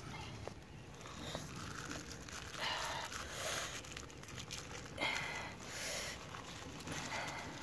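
A large green leaf rustling and crinkling as hands handle it and fold it around a sauce-covered piece of meat, in a few short noisy bursts about three and five seconds in.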